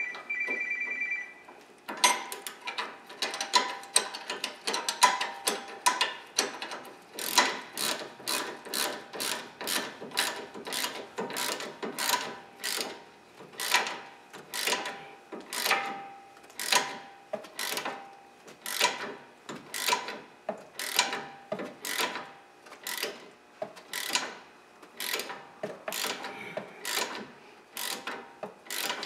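Hand ratchet wrench clicking in repeated back-and-forth strokes, roughly one burst of clicks a second, as a stabilizer link nut is worked loose while its stud is held still. A high ringing tone sounds for the first second or so.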